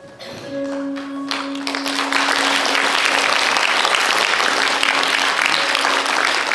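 Audience clapping, breaking out a little over a second in and quickly swelling to full applause, over a held note of music.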